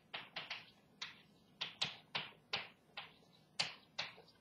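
Chalk writing on a chalkboard: a quick, uneven run of short tapping strokes, about three or four a second, as letters are chalked onto the board.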